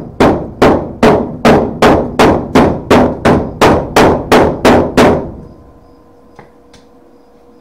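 A cheap hammer beats a tacked-in steel sheet-metal patch on a car's inner wheel tub to straighten it: a steady run of about a dozen ringing metal blows, a little over two a second. The blows stop about five seconds in.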